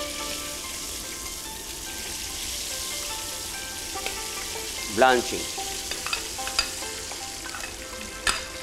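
Seafood oil-blanching in moderately hot cooking oil: a steady sizzling hiss that eases slightly toward the end.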